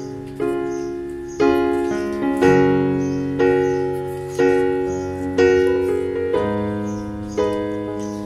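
Background piano music, with a new chord struck about once a second and left to fade before the next.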